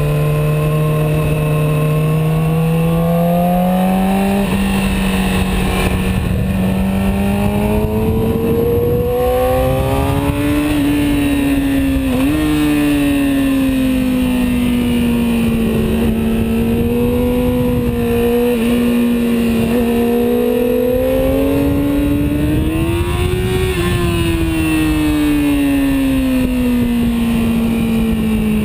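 Yamaha YZF-R6's inline-four engine on track, heard from the handlebars. Its note climbs over the first ten seconds with a couple of brief drops at gear changes, falls away, rises again about twenty-three seconds in, then falls off near the end.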